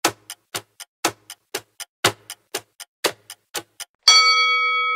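Countdown-timer sound effect: a clock ticking about four times a second, alternately louder and softer. About four seconds in, the ticking stops and a single bell chime rings out and slowly fades, signalling that the quiz answer is revealed.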